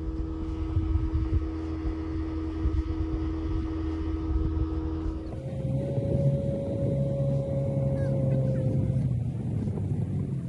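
A boat's outboard motor running steadily under way, with wind rush on the microphone. The engine note changes about five seconds in.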